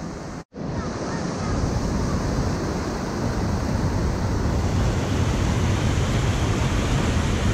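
Waterfall pouring into a rocky pool, a steady rush of falling water, broken by a brief dropout about half a second in and louder from about a second and a half on.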